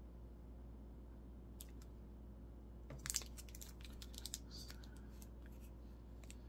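Clear plastic stamp packaging crinkling and clicking as it is handled and turned over in the hands. A few clicks come about a second and a half in, then a denser cluster of crackles about three seconds in, then scattered clicks, all over a faint low hum.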